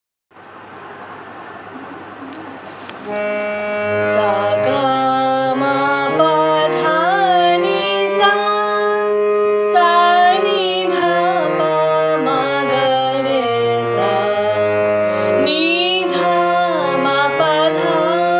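A woman singing a lakshan geet in Raag Khamaj, a Hindustani classical vocal with the voice gliding between held notes. Under it runs sustained instrumental accompaniment that changes note in steps and comes in about three seconds in, after a brief hiss.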